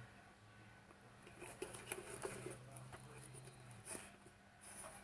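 Faint clicks and rustling of things being handled, over a low steady hum.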